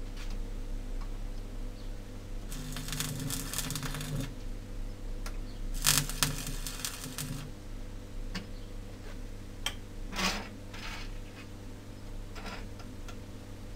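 Electric arc welding steel rod: two short crackling tack welds of about a second and a half each, one starting a few seconds in and one near the middle, over a steady low hum. A few light clicks follow as the welded pieces are handled.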